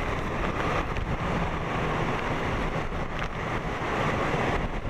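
Hurricane Matthew's wind gusting at hurricane force with driving rain, as a steady rushing noise with wind buffeting the microphone.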